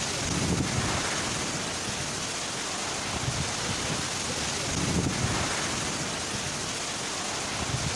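Heavy rain hissing steadily, with low rumbling swells every couple of seconds.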